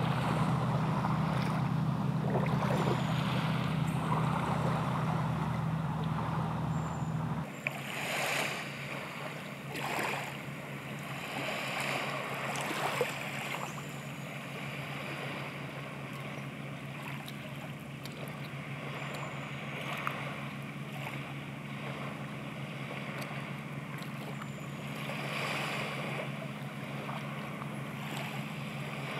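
Beach ambience: a steady wash of surf and wind over a low steady hum. The hum drops sharply about seven seconds in and carries on fainter, with a few louder swells of the wash just after.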